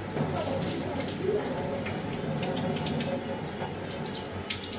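Water splashing and pouring as rice and green moong dal are rinsed in a steel pot and the rinse water is tipped out.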